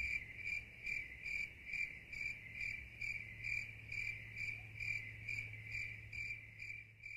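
Cricket chirping: one steady high trill swelling and fading in even pulses a little over twice a second.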